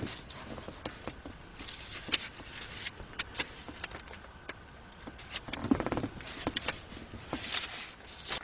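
Paper pages of a book or magazine being handled and turned: scattered light rustles and taps, with a short pitched sound about six seconds in.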